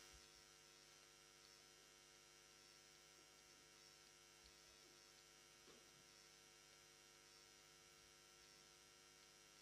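Near silence: a faint, steady electrical mains hum with no other sound.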